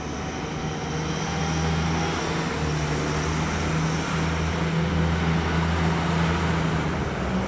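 DB class 622 (Alstom Coradia LINT 54) diesel multiple unit passing on the station track: a steady low drone from its diesel engines under a thin high whine, growing a little louder as it comes by.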